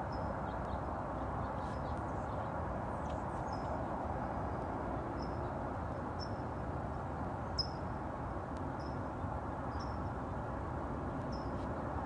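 Short, high bird chirps repeating irregularly about once a second, one sharper than the rest about two-thirds of the way through, over a steady background noise.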